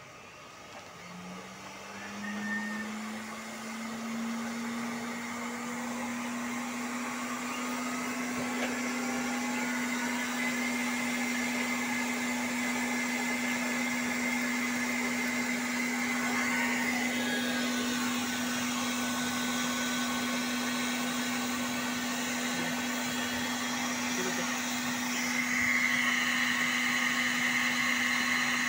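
Small electric blower fan of a waste-oil stove switched on, spinning up within a couple of seconds and then running with a steady hum and whoosh. It grows louder near the end.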